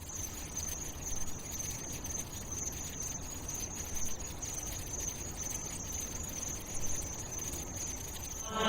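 Quiet steady ambient noise with a constant high-pitched, cricket-like trill over a low rumble.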